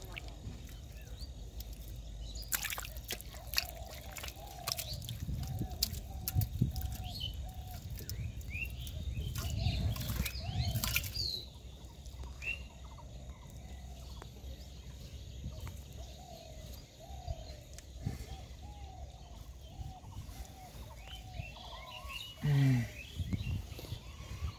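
A bird calling in runs of short repeated notes, twice, over low handling rumble with scattered knocks and clicks as wet mud is worked and bamboo slats are pushed into it. A brief, louder low-pitched sound comes near the end.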